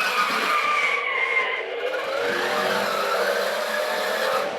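Mattel U Command Bat-Pod remote-control toy running, a motor or engine-rev sound that falls in pitch and then rises again about halfway through.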